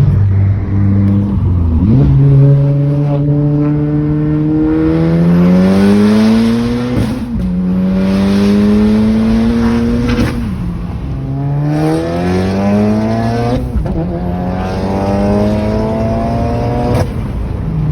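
Volkswagen Golf R MK7's turbocharged four-cylinder engine accelerating hard through the gears. The engine note climbs steadily, then drops suddenly at each upshift, about five times.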